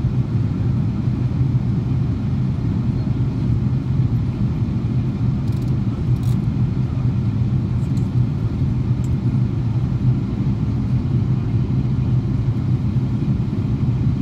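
Steady low drone of a Boeing 777-200 in flight, its engines and rushing airflow heard inside the passenger cabin.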